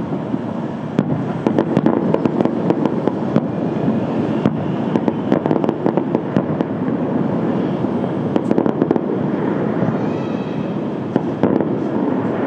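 Fireworks display going off: a dense, continuous run of bangs and crackling pops, with quick clusters of sharp reports.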